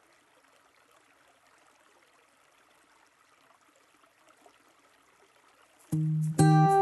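Near silence with a faint hiss, then acoustic guitar music starts about six seconds in: a single plucked note, then a fuller strum about half a second later.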